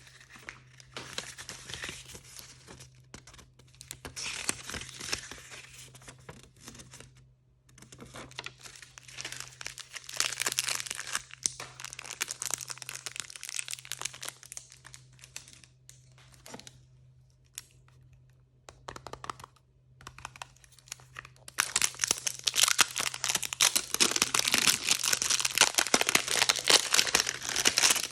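Plastic or foil blind-bag packaging being crinkled and torn open by hand, in several bouts with short pauses, the longest and loudest near the end.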